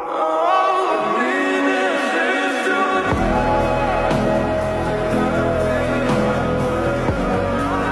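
Music with a sung melody and no clear words. Deep bass comes in about three seconds in.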